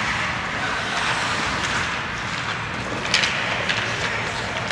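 Ice hockey rink ambience during a youth game: a steady wash of rink noise, with short sharp scraping sounds at the start and again about three seconds in.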